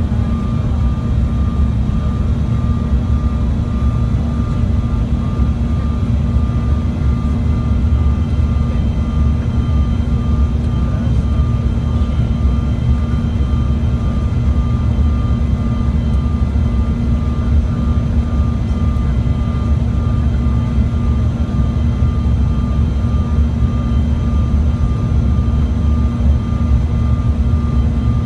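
Cabin noise of a CRJ700 regional jet descending on approach, heard from a seat near its rear-mounted GE CF34 turbofans. It is a loud, steady drone with a deep rumble and a few thin, high whining tones held at constant pitch.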